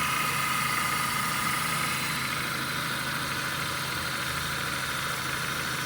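Dodge car engine idling steadily, with a steady high whine over the running. The accessory belt drive now turns on a new alternator, belt tensioner and pulley, and the earlier noise is gone.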